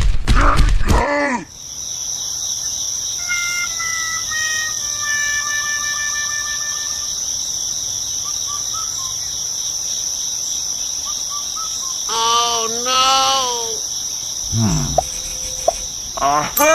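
Outdoor ambience: insects giving a steady high-pitched drone, with scattered bird calls; a louder pitched call rises and falls about twelve seconds in.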